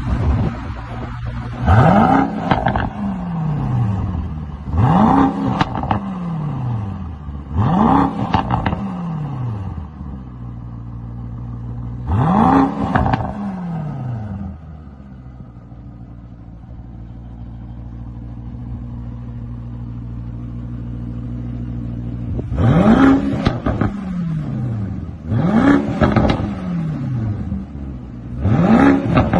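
Mercedes-AMG GT 63 S twin-turbo V8 idling and blipped seven times, each rev rising sharply and falling straight back to idle, with crackles as it drops. There is a longer stretch of plain idle about halfway through.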